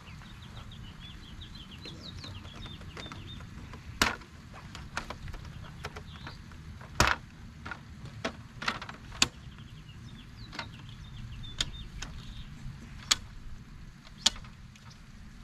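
A folding camp table being opened out and set up: a string of sharp clicks and knocks as its metal legs and plastic top are unfolded and snapped into place, every second or two. Birds chirp faintly behind it.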